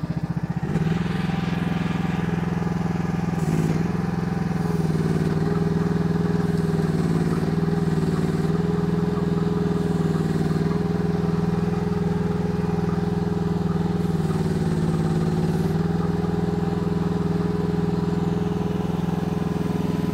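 KYMRON YH14 mini excavator's Briggs & Stratton engine running steadily while the boom and bucket are worked, its pitch dipping slightly a few times.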